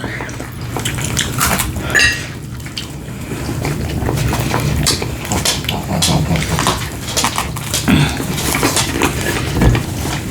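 Cutlery and dishes clinking at a meal: scattered short clicks and knocks over a steady low hum.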